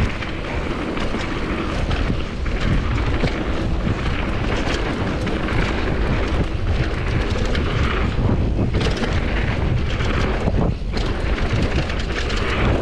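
Wind rushing over an action-camera microphone on a downhill mountain bike at speed, over the rumble of knobby tyres on a dirt trail and constant small rattles and knocks from the bike's chain and frame over bumps.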